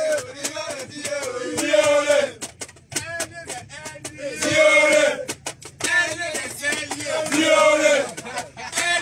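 A group of men singing a celebration chant together in short phrases with pauses between them, with sharp hits in between, inside a coach bus.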